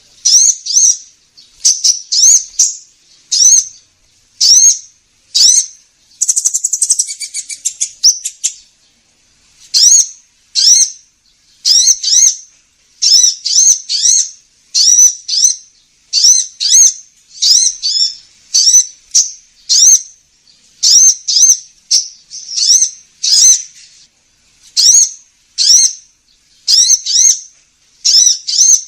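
Sunbird ('kolibri ninja') lure call: loud, short, high chirps repeated in quick clusters of one to three, with a fast rattling trill a few seconds in.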